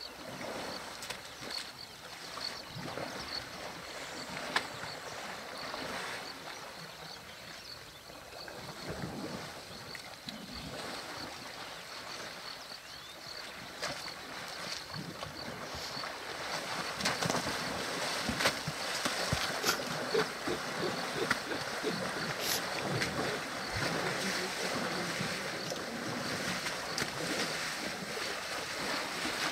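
African elephant bulls wading and splashing through a waterhole: water sloshing and slapping around their bodies and trunks, with scattered knocks, a little louder in the second half.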